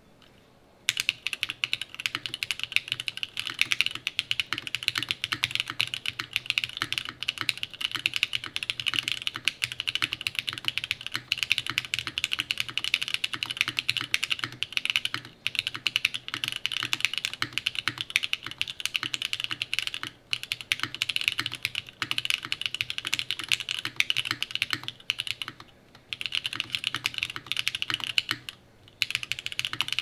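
Fast, continuous typing on a Mode Sonnet mechanical keyboard: a carbon fiber plate with no foam, lubed and filmed Zaku switches and GMK Norse keycaps. The keystrokes start about a second in and run on with a few short pauses in the second half.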